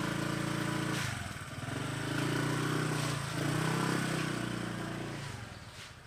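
Small motor scooter engine running at low speed. Its note dips about a second in, picks up again, then dies away about five seconds in.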